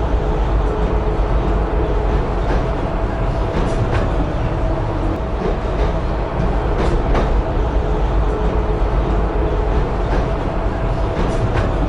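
Tram running along its rails, heard from inside the car: a steady low rumble with a faint hum, and a few sharp clicks and knocks.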